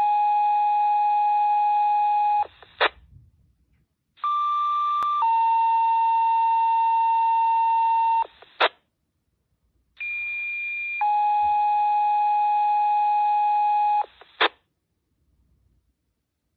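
Fire dispatch paging tones over a radio: three long steady alert tones, the second and third each led by a short higher tone of about a second, as in two-tone sequential paging that sets off the assigned stations' pagers. Each page ends with a brief burst of squelch noise as the transmitter unkeys.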